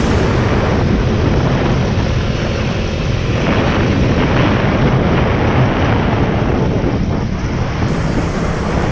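Wind buffeting the microphone of a camera on a moving motorcycle: a loud, steady rumble, with a brighter hiss coming in near the end.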